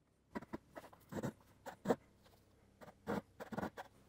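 Japanese pull saw starting a cut in a small wood block: about ten short, uneven rasping strokes as the kerf is begun, typical of a beginner's short starting strokes.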